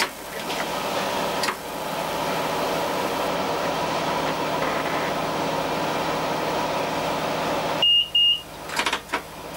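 Diesel railcar idling at a standstill, heard from inside the driver's cab: a steady engine hum with a few clicks. About eight seconds in, two short high beeps sound in quick succession, followed by a couple of clicks.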